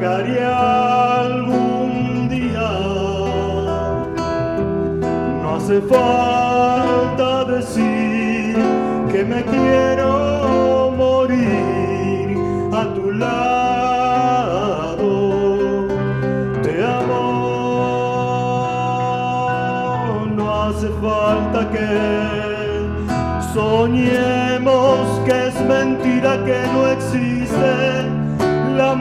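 A man singing a Spanish-language song into a microphone, with live keyboard accompaniment.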